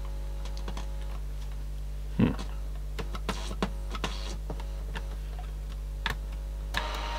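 Steady electrical hum and buzz through a bench amplifier fed from a Sanyo M-G95 Walkman's headphone output, with scattered small clicks of the unit being handled. Near the end the buzz changes and a hiss comes up.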